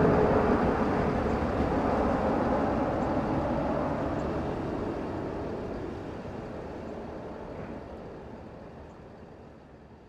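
Boeing 747 four-engine jet noise on final approach, gear down: a broad rush that fades steadily away as the airliner recedes toward the runway.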